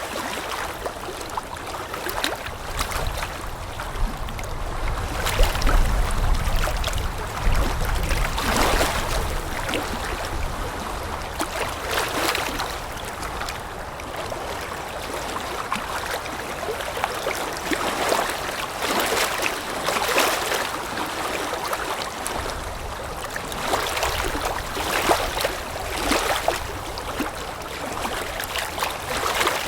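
Water lapping in small irregular splashes, with wind blowing throughout; a low wind rumble swells between about four and nine seconds in.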